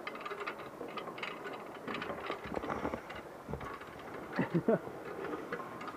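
Hand-hauled cable car's pulley wheels rattling and clicking along the steel cable as it is pulled up the second, uphill half of the span, with a short burst of voice partway through.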